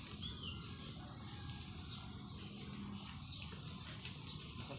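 Insects shrilling steadily in a high, unbroken drone, with a few faint high chirps about a second in.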